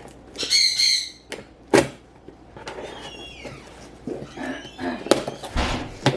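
A cardboard shipping box being opened by hand: a high squeal about half a second in, a sharp crack a second later, then rustling and knocks of the cardboard and packing, with a low thump near the end.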